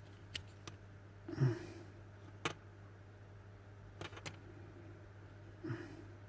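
Faint scattered clicks and a couple of light knocks from a plastic steering-wheel button module being handled, over a low steady hum.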